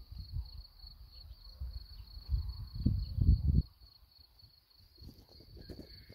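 An insect trilling steadily in a high, rapidly pulsing chirp, with low buffeting on the microphone that is loudest around the middle and drops away a little past halfway.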